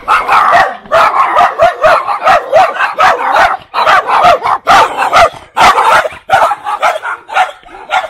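Several small dogs barking rapidly and almost without pause, with high-pitched yapping barks about two or three a second, growing fainter near the end.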